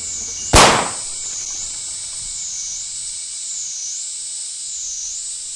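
A single handgun shot about half a second in: one sharp crack with a short tail. Under it a steady high insect buzz swells and fades every couple of seconds.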